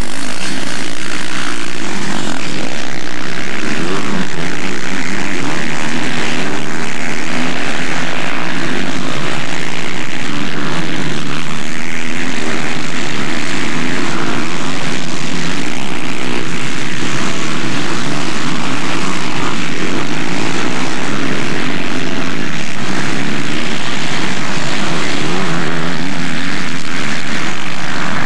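Four-stroke motocross bikes racing on a grass track, their engines running loud and continuously with no break.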